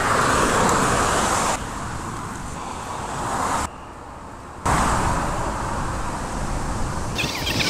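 Road traffic noise from cars on a dual carriageway: a steady rushing hiss. It changes abruptly several times, dropping away for about a second in the middle before coming back.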